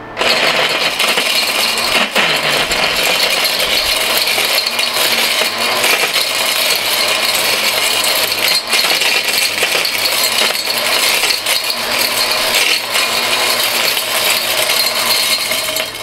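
Mighty Mill ore crusher, driven by an angle grinder, shredding an electronic connector of plastic, steel and gold-plated pins. It makes a loud, dense metallic clatter with sharp knocks in it, starts abruptly, and stops near the end. The grinder is struggling with a load heavier than the mill was designed for.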